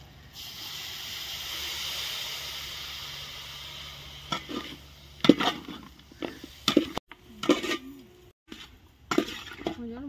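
Water poured into the hot kadai of onion and chilli-chicken masala sizzles steadily for about four seconds. Then a metal ladle clanks and scrapes against the pan in a run of sharp knocks as the gravy is stirred.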